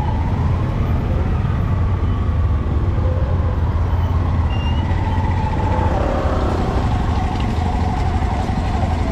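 Busy street ambience: a steady low rumble of vehicle engines and traffic, with faint, wavering voices in the background.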